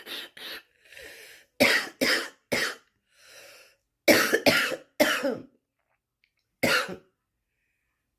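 A woman's smoker's cough in fits: two coughs, a breath in, three coughs, another breath in, three more coughs, then a single cough about two-thirds through. It is the cough of a smoker whose lungs and breath she calls really obstructed.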